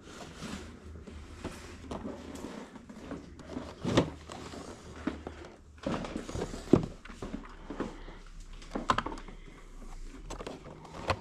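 Handling noise of die-cast toy fire trucks and boxed plastic-windowed models being picked up and shifted in a cardboard box, with scattered clicks and knocks, the sharpest about four seconds in and again near seven seconds.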